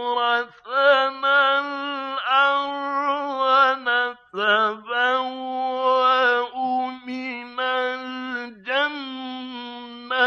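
A man's voice reciting the Quran in the melodic mujawwad style, drawing syllables out into long held notes with ornamental turns and short breaths between phrases. The sound is narrow and dull, lacking the high end, as in an old recording.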